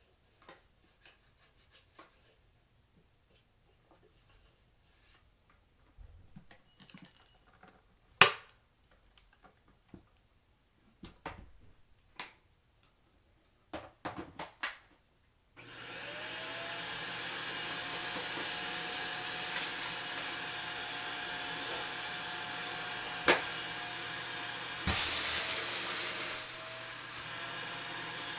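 Clicks and knocks as a vacuum cleaner is handled. About halfway through, its motor switches on and runs steadily, with a whine that quickly climbs to pitch as it spins up. A few seconds later come a sharp click and a brief louder rush.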